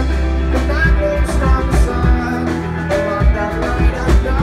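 Rock band playing live: electric guitar notes over a held bass line and steady drum hits.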